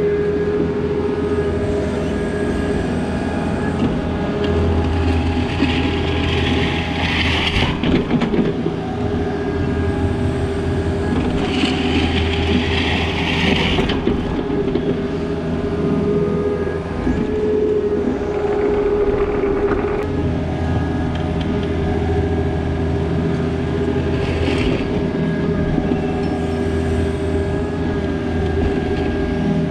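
Takeuchi TB260 mini excavator's diesel engine running with a steady hydraulic whine. The engine note rises and falls with load several times as it works, with two short hissing bursts in the first half.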